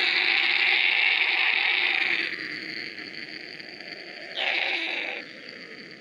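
A man mimicking an aeroplane with his voice: a breathy, hissing engine whine forced through the teeth. It is loud for about two seconds, drops, swells again briefly about four and a half seconds in, then fades, as the aeroplane comes down to land.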